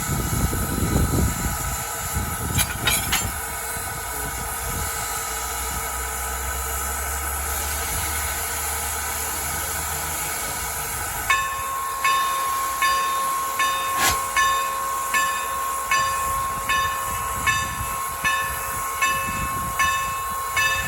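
Norfolk & Western No. 475 steam locomotive hissing steadily, with a few metallic clanks about three seconds in. About halfway through, the locomotive's bell starts ringing in even strokes, roughly one every 0.8 seconds, as the engine moves to couple.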